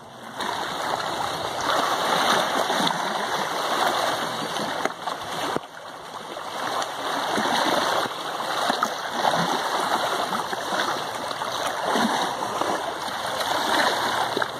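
Small waves lapping and splashing against the shore, a steady wash of water.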